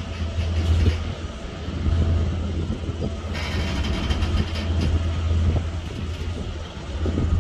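Container wagons of a freight train rolling past on the track: a steady low rumble with wheel-on-rail clatter. A brighter hiss joins in about three seconds in.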